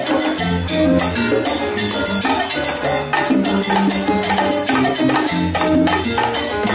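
Live salsa band playing an instrumental passage: timbales and cymbal struck with sticks over a moving bass line.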